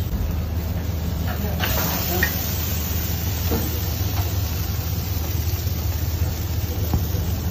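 Fish sizzling on a hot grill grate, a steady hiss that gets louder about a second and a half in, over a constant low hum.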